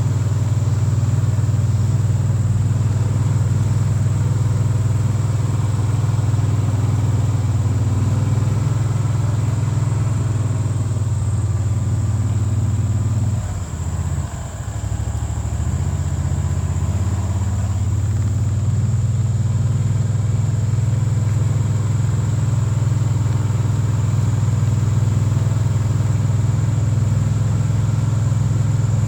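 A vehicle engine running steadily with a low hum. About halfway through it briefly drops and changes pitch, then settles back.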